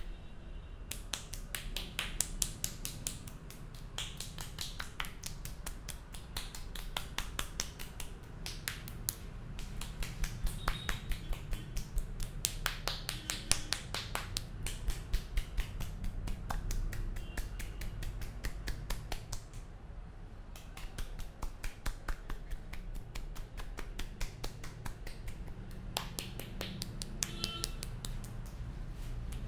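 Fast, sharp percussive tapping of a barber's hands on a head during an Indian head massage, several snaps a second, pausing for about a second some two-thirds of the way through.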